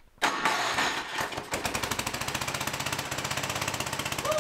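Tecumseh 9-horsepower snowblower engine being cranked by its plug-in electric starter, catching about a second and a half in and then running steadily with a rapid, even firing beat.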